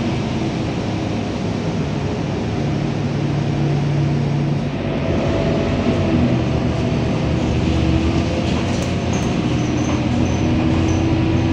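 Scania K230UB city bus running on the road, its five-cylinder diesel and drivetrain heard from inside the passenger cabin as a steady rumble whose engine note shifts pitch as the bus moves. A faint, broken high-pitched whine comes in about eight seconds in.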